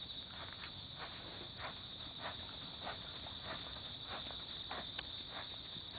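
Hoofbeats of a ridden racehorse on a dirt training track, soft thuds about twice a second, over a steady high chirring of insects.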